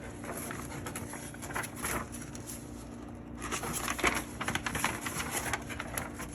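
Scattered small clicks and rustles of handling, busier in the second half, over a steady low background hum.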